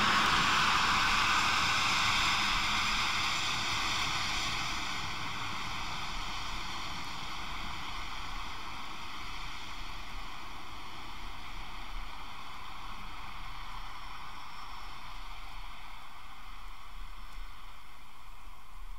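German Federal Railway class 01 Pacific steam locomotive 001-181 with its train heading away down the gradient. The rush of the rolling train fades over the first several seconds into a faint steady hiss.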